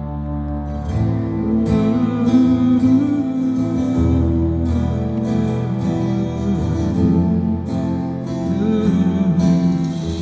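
Live band music with strummed acoustic guitar under a wavering sung or played melody line, in the closing instrumental stretch of a pop-rock song.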